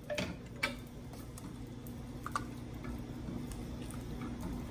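A few light clicks of a utensil against a stainless steel cooking pot as the pot of lentils is stirred, over a steady low hum.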